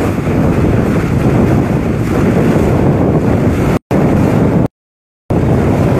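Heavy wind buffeting the microphone on the bow of a sailboat under way. The sound cuts out completely twice: briefly just before 4 seconds in, and for about half a second near 5 seconds.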